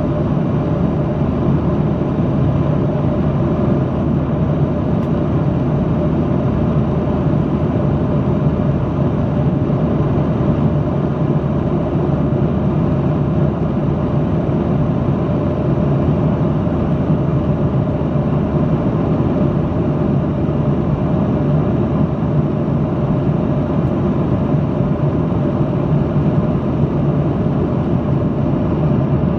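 Steady cabin noise of a Boeing 737-800 in flight: the unbroken drone of its engines and rushing airflow, with a low hum running through it.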